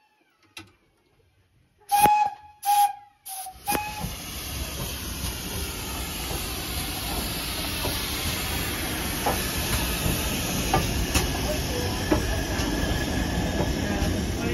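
Steam locomotive whistle giving three short blasts about two seconds in, followed by a steady hiss of steam.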